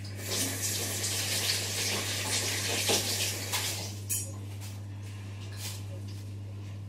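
Kitchen pans and utensils clattering over a rushing hiss for about four seconds, then only a few faint clicks.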